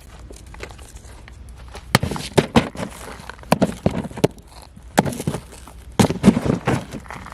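Irregular sharp clicks and knocks with rustling handling noise, starting about two seconds in and coming in clusters.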